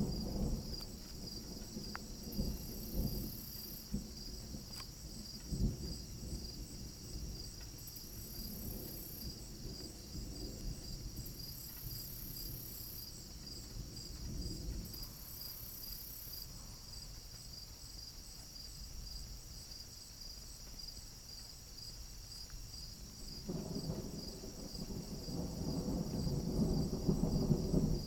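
Crickets chirping in a steady, evenly pulsing trill, with a higher insect buzz coming and going in a few spells of several seconds. Low thunder rumbles and fades at the start; a louder rumble builds about 23 seconds in and is the loudest sound.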